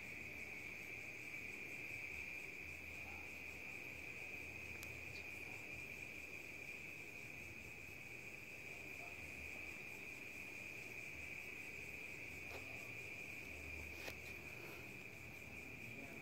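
Crickets trilling at night, one steady high-pitched chirring that goes on without a break, faint. A light click comes about five seconds in and another near the end.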